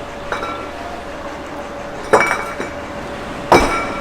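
Several sharp clinks of hard metal or glass objects, each with a brief ringing tone; the loudest comes about three and a half seconds in.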